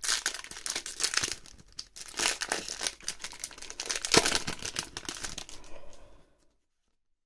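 Foil wrapper of a Pokémon trading card booster pack being torn open and crinkled in the hands, a dense run of sharp crackles with the loudest crack about four seconds in. The crinkling cuts off suddenly a little after six seconds.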